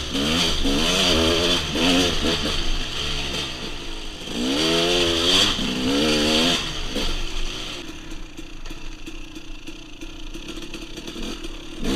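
Dirt bike engine revving up and easing off again and again while riding. From about eight seconds in it drops to a quieter, steady running note.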